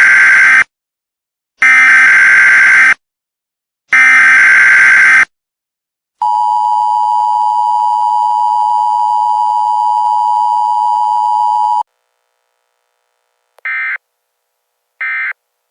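Emergency Alert System tone sequence: three loud bursts of the screeching SAME header data, then the steady two-tone EAS attention signal held for about five and a half seconds, then short end-of-message data bursts near the end. The tones are valid, so EAS decoding equipment could take them for a real alert.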